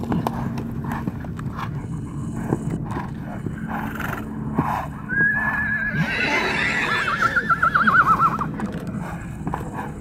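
Wild stallions fighting: hooves thud and scuffle on stony dirt throughout. About halfway through, one stallion gives a long whinny of about three seconds that starts steady, then wavers and drops slightly in pitch.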